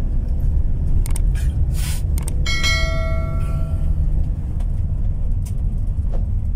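Steady low rumble of road and engine noise inside a moving van's cabin. About two and a half seconds in, after a few clicks, a short bell ding rings for about a second: the sound effect of an on-screen subscribe-button animation.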